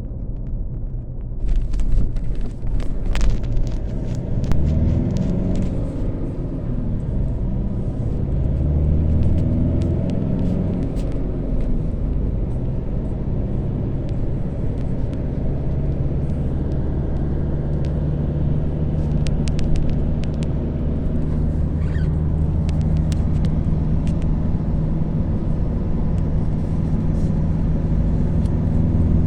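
A motor vehicle's steady low rumble. A low hum settles onto a steady pitch about halfway through, with a few faint clicks scattered over it.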